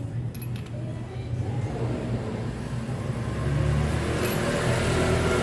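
A motor vehicle engine running with a steady low hum. It grows louder about three and a half seconds in.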